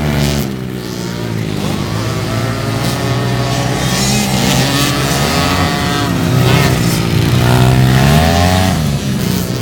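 Racing ATV engines revving hard, the pitch climbing and dropping again and again with the throttle.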